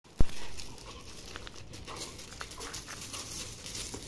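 Two dogs, a Belgian Malinois and a mixed-breed, play-fighting on gravel: an irregular scuffle of paws and bodies on the stones, with dog sounds. A single sharp knock just after the start is the loudest sound.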